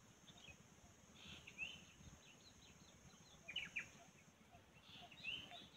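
Faint wild birdsong: scattered short, high chirps and quick downward-sliding calls in small clusters, the loudest about one and a half, three and a half and five seconds in.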